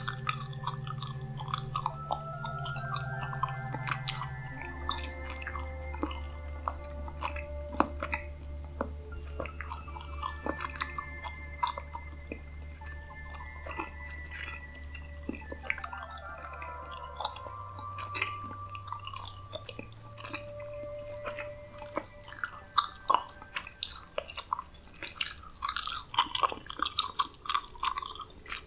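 Close-miked gum chewing: a steady run of small mouth clicks, growing busier near the end, over a soft ambient music drone whose held tones change in steps.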